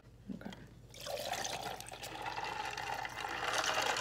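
A drink of half vitamin water and half Sprite being poured into a glass: a steady pouring stream that starts about a second in.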